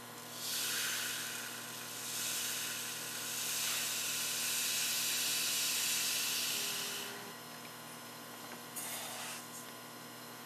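Sand pouring through a plastic funnel into a split mold: a steady hiss that starts about half a second in, dips briefly around two seconds, and stops at about seven seconds, with a short trickle again near nine seconds. A steady hum runs underneath.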